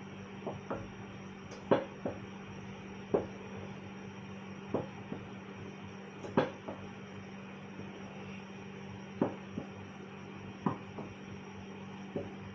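A stirring utensil knocking against the side of a saucepan as porridge is stirred. There are about a dozen uneven knocks, three of them much louder than the rest, over a steady low hum.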